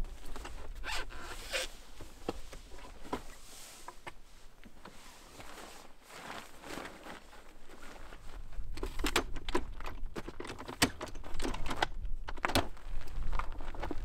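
iKamper Skycamp rooftop tent being packed away: fabric rustling, zipping and scraping as the canvas is folded in, with a few sharp clacks near the end.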